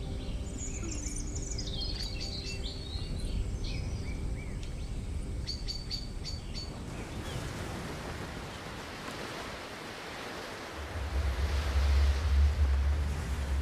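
Birds chirping in short high calls for the first half, giving way to a steady rushing noise of sea surf and wind; about eleven seconds in a strong low rumble comes in and becomes the loudest sound.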